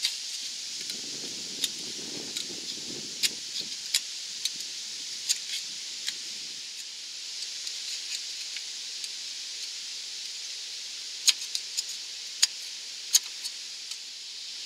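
Sharpened putty knife scraping old header gasket residue off the exhaust-port face of a cylinder head: a run of short, sharp metallic scrapes and clicks at irregular intervals, a few of them louder near the end. Wind rumbles in the background at times.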